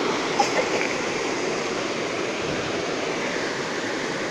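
Rushing water of a small rocky stream pouring over a little cascade: a steady, even rush.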